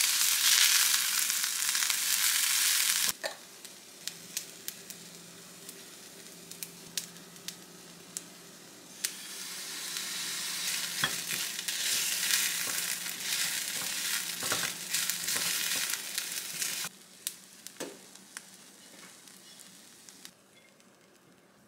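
Fried rice with tempeh and vegetables sizzling in a frying pan as it is stirred and turned with a spatula. The sizzle cuts off suddenly about three seconds in, giving way to light clicks and taps, then sizzling and stirring return for several seconds before falling back to a few quiet taps near the end.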